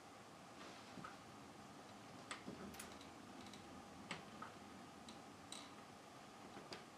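Near silence: quiet room tone with a few faint, irregularly spaced clicks and small creaks.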